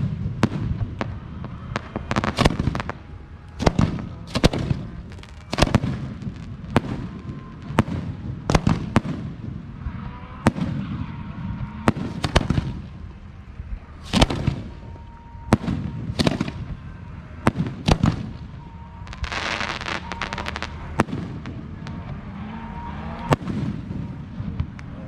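Aerial fireworks shells bursting one after another, a sharp bang every second or two, each with a brief rumble after it. About two-thirds of the way through, a burst of dense crackling.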